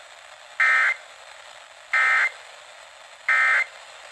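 Weather radio EAS/SAME end-of-message data code: three identical short, shrill warbling data bursts about 1.3 seconds apart, over steady radio hiss. It marks the end of the warning broadcast.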